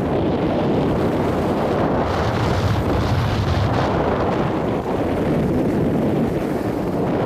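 Steady rushing wind buffeting the microphone of a camera moving fast down a ski slope.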